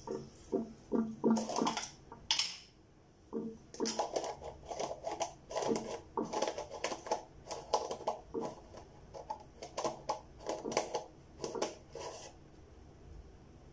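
Shaving brush worked in a bowl to whip up lather: a few scattered taps at first, then a dense run of quick scratchy, wet strokes, several a second, from about four seconds in until shortly before the end.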